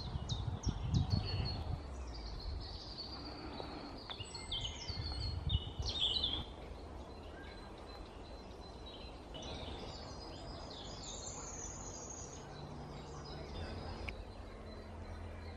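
Several songbirds chirping and trilling, busiest in the first six seconds and then sparser, over a low rumble that is strongest near the start.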